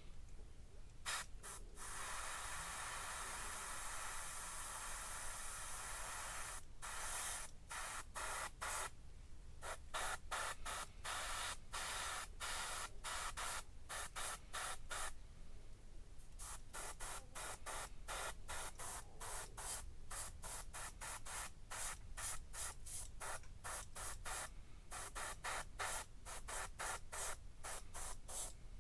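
Paint sprayed onto small model-kit engine headers: one steady hiss of about four seconds, then many short bursts of spray, two or three a second, with short gaps between.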